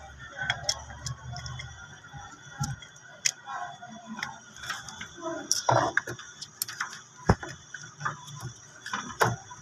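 Irregular clicks and taps from hands working the wires and start relay at a fridge compressor's terminals, over a faint steady high whine, with a low hum in the first two seconds.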